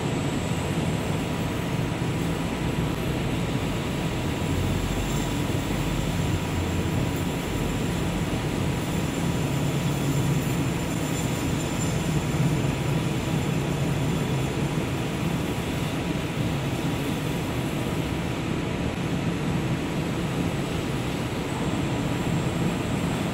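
CNC metal spinning machine running, forming a metal bottle blank: a steady mechanical drone with a low hum that swells twice.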